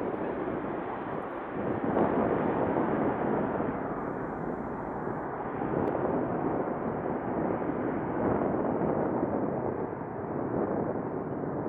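Airbus Beluga XL's twin Rolls-Royce Trent 700 turbofans at takeoff thrust as the aircraft climbs away: a steady, deep jet rumble with no distinct tones that swells and eases slightly.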